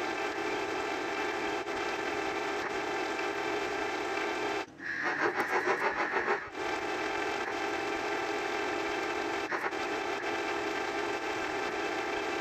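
Dense, steady electronic drone, a noisy buzz made of many stacked tones. About five seconds in it gives way for under two seconds to a rapid pulsing beep of about eight pulses, then the drone resumes, with a brief break near the end.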